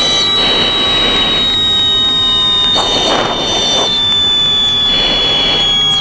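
U-2 Dragon Lady's audible angle-of-attack tone: a steady high-pitched tone heard over the intercom, gliding slowly lower in pitch. Three short airy hisses come through over it.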